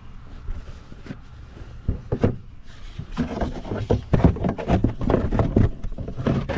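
Handling noise from a hand-held camera being worked into a car's wheel well: irregular knocks, rubs and scrapes as it bumps against the suspension and wheel-well liner. They are sparse at first and come thick and fast about halfway through.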